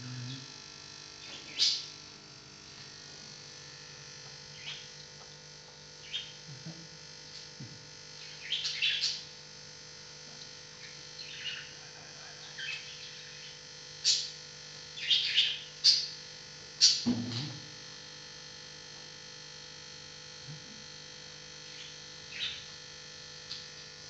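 A parrot chirping in short, high calls, scattered every second or two and bunched together in places, over a steady electrical hum.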